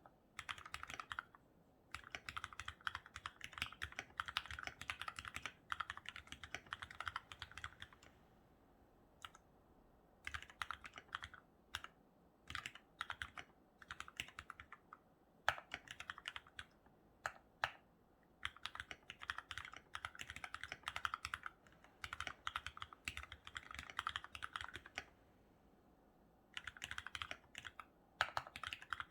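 Typing on a COX CK87BT mechanical keyboard with foam dampening, lubed retooled Cherry MX Black linear switches and Cherry-profile keycaps: fast, continuous runs of keystrokes with a few brief pauses.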